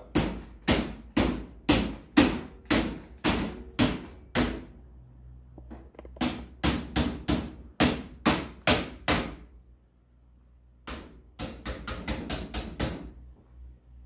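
Repeated hammer blows on the steel body of an NZXT H510i computer case, knocking out a dent. Two runs of sharp knocks at about two a second, with a short pause between them, then a quicker flurry of lighter taps near the end.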